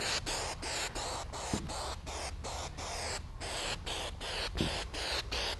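Aerosol can of spray adhesive hissing in quick short spurts, about three or four a second.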